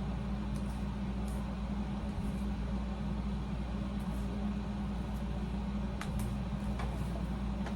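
Room air conditioner running with a steady low hum, and a couple of faint clicks.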